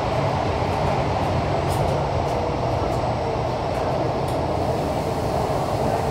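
Metro train running through a tunnel, heard from inside the carriage: a steady rumble of wheels on rails.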